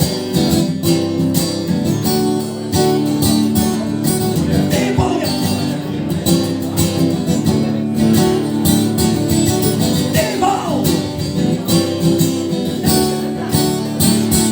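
Acoustic guitar strummed in a steady rhythm, an instrumental passage between sung verses of a rock song played live.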